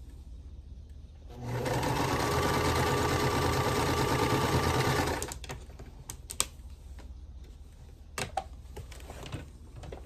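Singer Start domestic sewing machine stitching a seam. It starts about a second in, runs steadily for about four seconds and stops, followed by a few light clicks and taps.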